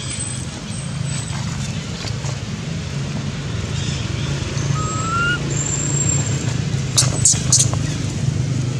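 Steady low hum of a running motor-vehicle engine. A short rising chirp sounds near the middle, and three brief sharp high-pitched sounds come close together about seven seconds in.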